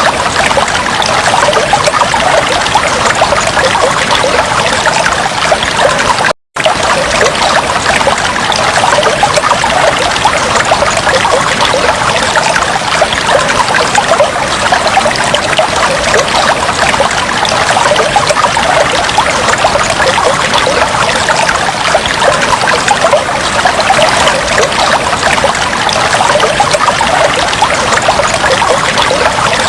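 Aquarium water trickling and bubbling steadily, a dense patter of small splashes and bubbles. It cuts out for a split second about six seconds in.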